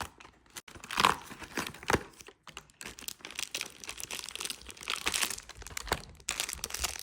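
Packaging crinkling and tearing as a fishing-lure advent calendar compartment is opened and the lure's wrapping is handled, in irregular crackles and rustles with a louder tear about a second in.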